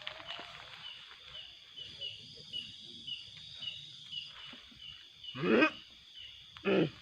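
Night insects chirping steadily, about three chirps a second. Near the end come two short, loud falling cries, the second shorter than the first.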